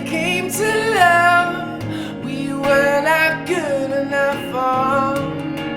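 Background music: a song with long held sung notes over guitar chords.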